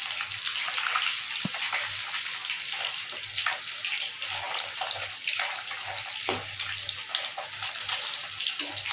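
Fish pieces deep-frying in hot oil in a pan, sizzling and crackling steadily, with a few scrapes of a metal spatula through the oil.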